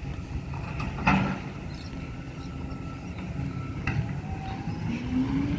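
Garbage truck running at a distance: a steady low engine rumble with two sharp clanks, about a second in and just before four seconds. From about five seconds in, a whine rises steadily in pitch.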